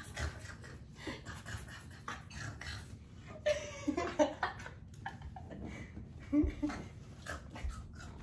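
Small sounds from a puppy being held and petted, with a woman's short laugh about midway and rustling from handling.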